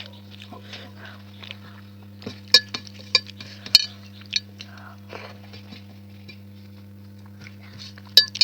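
Cutlery and dishes clinking during a meal: a handful of sharp clinks with brief ringing, bunched between about two and four and a half seconds in and once more near the end, over a steady low hum.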